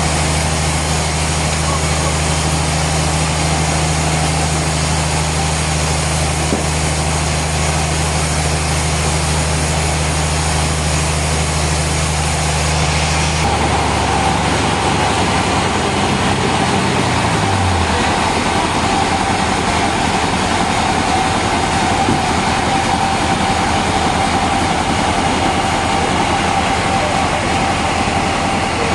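Heavy sawmill machinery running with a steady loud hum and noise. About halfway through the sound changes abruptly, and a low hum slides down in pitch over a few seconds as a machine winds down, while a higher steady whine carries on.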